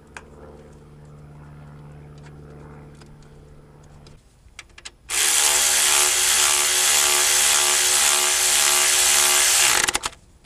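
A few clicks as a cordless electric ratchet is fitted onto an alternator mounting bolt. Then the ratchet runs steadily for about five seconds, tightening the bolt, and stops abruptly.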